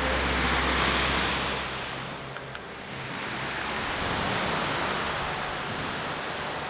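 Ocean surf washing ashore: a steady rushing noise that swells, eases about two and a half seconds in, then swells again. Background music fades out in the first couple of seconds.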